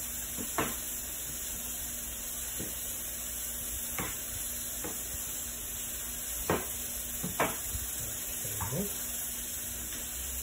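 Olive oil and vegan butter sizzling steadily in frying pans, with about seven short, sharp knocks scattered through.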